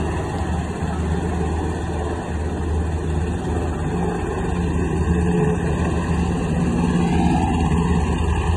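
UH-60 Black Hawk helicopter flying low, its rotor and twin turbine engines making a steady low drone that grows a little louder in the second half.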